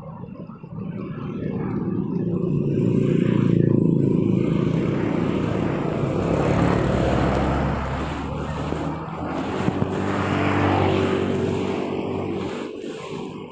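Small motorcycle engines passing close by one after another. Each swells and fades, and the loudest passes come about three to four seconds in and again around seven seconds.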